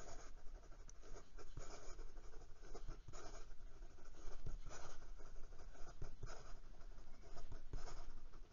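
Broad Jowo nib of an ebonite fountain pen scratching across notebook paper in quick, irregular writing strokes.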